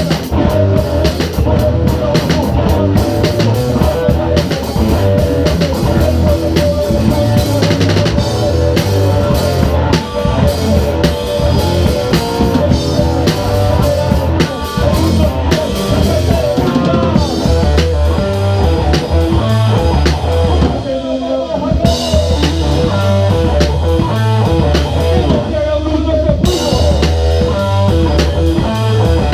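Live rock band playing: a drum kit heard from right beside it, with dense cymbal and drum hits, over electric guitar and bass.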